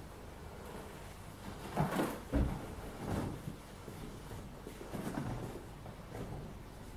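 Soft knocks and rustling as a hand and young chipmunks move about on an upholstered sofa, a cluster of thumps about two seconds in, with smaller ones near three and five seconds.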